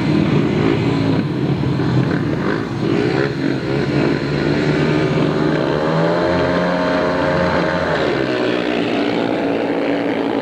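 Four speedway bikes' single-cylinder 500cc methanol-burning engines revving hard together at the start tapes. About six seconds in their pitch climbs and holds high for a couple of seconds, then drops.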